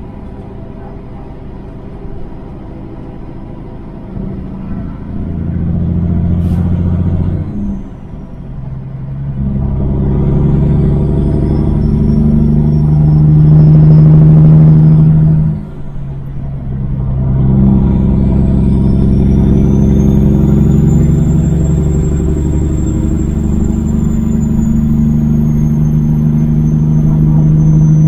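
Semi truck's diesel engine pulling under load, getting louder as it goes. Its note cuts out briefly twice, about eight and sixteen seconds in, at gear changes. A high whine rises and falls over the engine in the second half.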